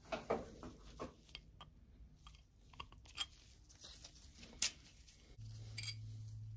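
Faint scattered clicks, taps and crinkles of gloved hands handling motorcycle clutch lever parts at the handlebar, pushing a sleeve into place. A low steady hum starts about five seconds in.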